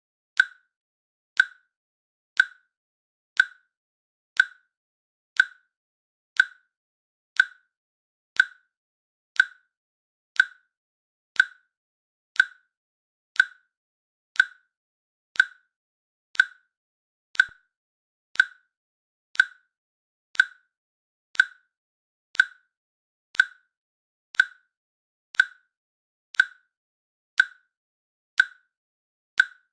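Synthetic timer click sound effect, one short sharp click with a clear pitch each second, marking the seconds of a countdown.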